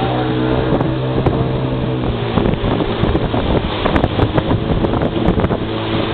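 Motorboat engine running steadily as the boat travels, with wind buffeting the microphone, which grows stronger about halfway through.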